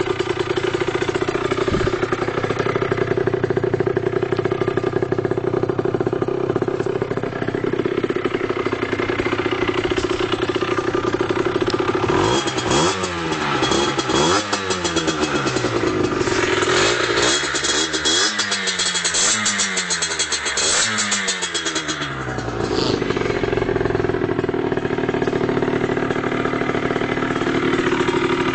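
Rieju MRX Pro's 50cc two-stroke engine with a Yasuni Cross exhaust, idling steadily, then revved up and let drop in a quick series of blips through the middle, then settling back to idle.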